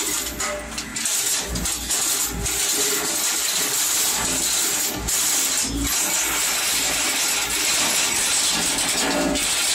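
A 24 by 16 hammer mill, fitted with a screen, running with a steady loud clatter. Irregular sharp metallic bangs come through it as metal replacement knee, hip and shoulder joints of titanium, stainless steel and cast metal are beaten by the hammers.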